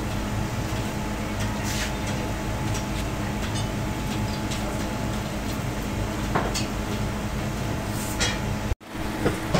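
Steady low mechanical hum of foundry machinery, with a few light clinks and knocks of metal on the mould boxes as molten iron is poured from a hand ladle. The sound drops out for a split second near the end.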